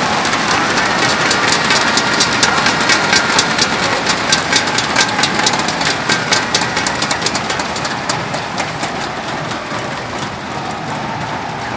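Large indoor arena crowd cheering, with a rapid patter of clapping and banging inflatable thundersticks that is loudest in the middle and eases off near the end.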